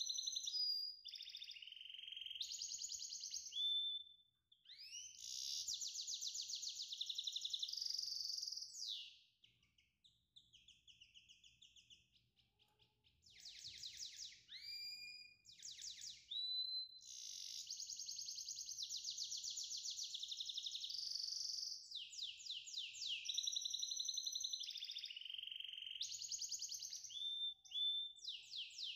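High-pitched birdlike song of rapid trills and upward whistled glides, in phrases of a few seconds with short pauses.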